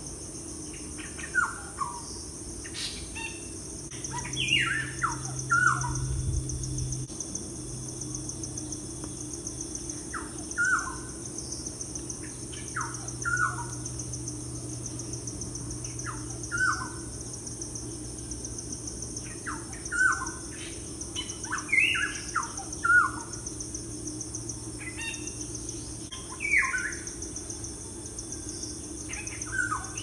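Birds calling: short notes that fall steeply in pitch, in little clusters every few seconds. Behind them runs a steady high insect buzz.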